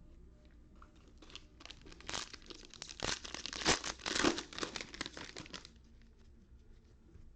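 Foil trading-card pack wrappers being torn open and crumpled by hand, a dense crinkling that builds for a few seconds and then stops.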